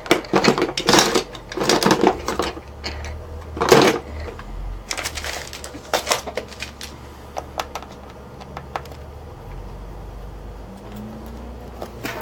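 Small metal tools clinking and clattering as they are rummaged through in a search for a screwdriver. There are several loud clatters in the first four seconds, then lighter scattered clicks.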